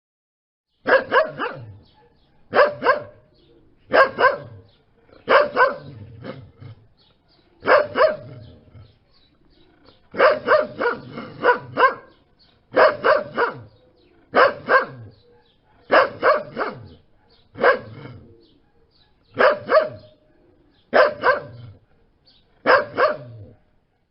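A dog barking repeatedly, in bouts of two or three barks every couple of seconds, with a faster run of barks about ten seconds in.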